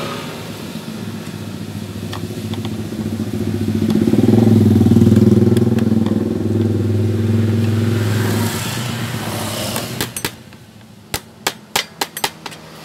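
A vehicle engine's steady hum, swelling louder about four seconds in and fading away after about eight seconds, as of a vehicle passing. Near the end, a quick series of sharp clicks or knocks.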